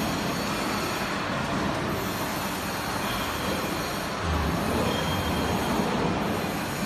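Steady mechanical noise of a busy factory workshop, with low rumbling about four seconds in.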